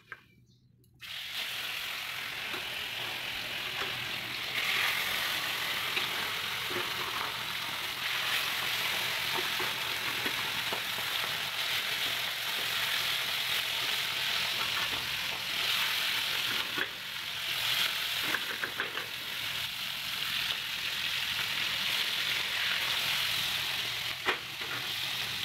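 Turmeric-and-spice-coated fish pieces sizzling steadily in hot oil in a wok, starting about a second in. A few clicks of a metal spatula against the pan come through the sizzle.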